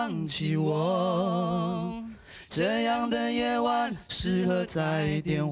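Two men singing a Mandarin pop ballad unaccompanied into microphones, holding two long notes with vibrato, then going on into shorter phrases.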